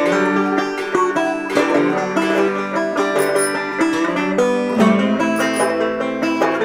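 Background music: a lively tune on plucked string instruments, banjo and guitar, in a bluegrass style.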